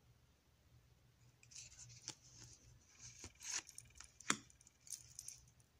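Glossy oracle cards sliding against one another as one is moved from the front of the deck to the back: a faint rustle with a few light clicks and snaps, the sharpest about four seconds in.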